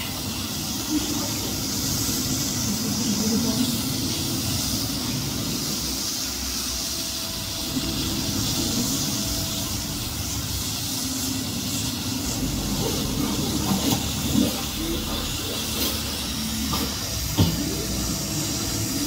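Steady hissing rush of a water-spray projection screen, with a few faint knocks.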